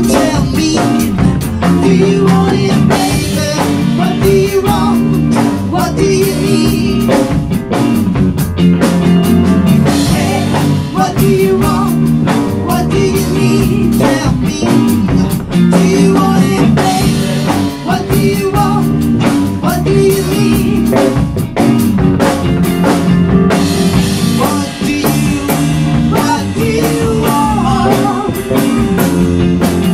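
A rock band playing with a steady beat on drum kit, bass guitar, electric guitar and keyboard, with lead singing over it.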